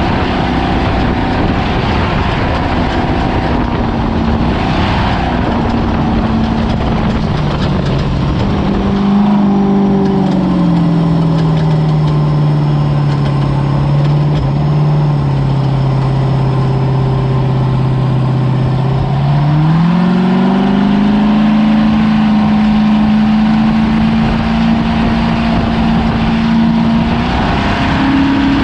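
Ford Ranger desert race truck's engine running hard with a constant rush of noise around it. Its revs drop about a third of the way in, stay low for several seconds, then climb back up and hold.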